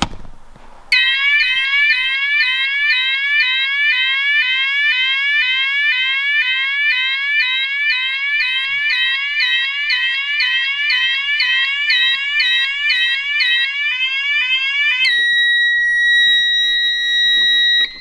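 Vantage 32-tone combi sounder going off in alarm after the TekTone pull cord switch is pressed: a loud, rapidly repeating rising sweep tone, changing to a steady high continuous tone about 15 seconds in, then cutting off.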